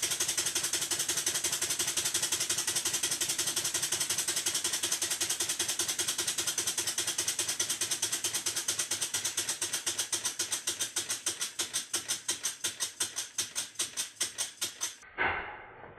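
Model Stuart beam engine running on compressed air: a rapid, even string of exhaust chuffs over a steady air hiss, slowing gradually and stopping about a second before the end as the air supply at the valve is shut off.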